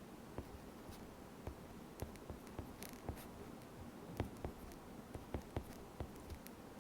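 Faint writing: a pen tapping and scratching on a writing surface in irregular light clicks, with a short scratchy stroke about three seconds in.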